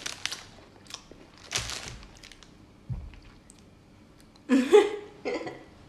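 A person chewing a crisp snack close to the microphone, with a few sharp crunches in the first two seconds and a soft thump near the middle. A brief bit of voice comes about four and a half seconds in.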